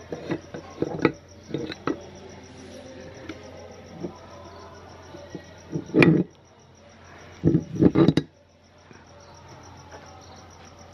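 Metal clinks and knocks from a cast-iron hand-crank meat grinder being handled and taken apart: light clicks at first, a loud clunk about six seconds in and a quick cluster of knocks near eight seconds, over a faint steady high-pitched tone.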